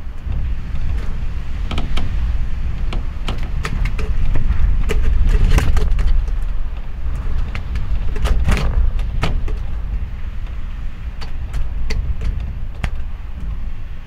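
Gale-force wind gusting against a house, heard from inside a bedroom: a loud low rumble that swells around four to six seconds in and again around eight to nine seconds, with scattered sharp clicks and knocks throughout.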